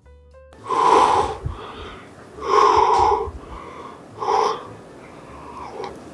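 A person's breath: three loud, breathy exhalations about a second and a half apart, the last one shorter.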